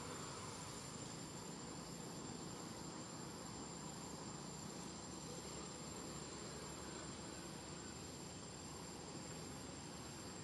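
Insects chirring steadily: a high continuous tone with a fainter, regularly pulsing trill above it, over a low background hiss.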